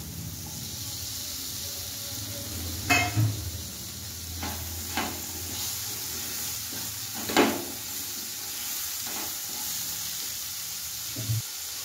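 Diced vegetables and chopped tomatoes sizzling steadily in hot mustard oil in a non-stick pan while they are stirred. About six sharp knocks of utensils against the pan, the loudest a little past the middle.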